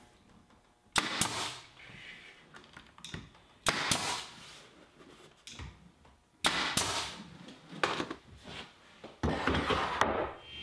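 Five sharp clacks, one every two to three seconds, each trailing off in a brief rush of noise, from work on poplar-edged HDF shelf panels at the bench.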